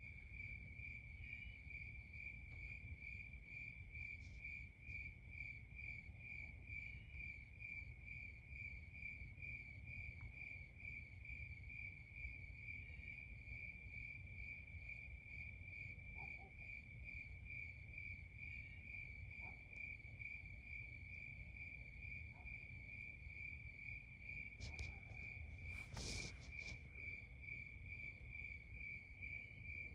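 Crickets chirping in a steady, even pulse over a faint low rumble, with a couple of brief sharp clicks a few seconds before the end.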